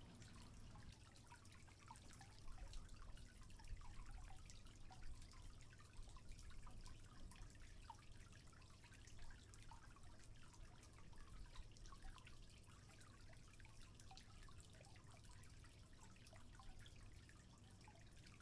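Faint water trickling, with many small irregular drips.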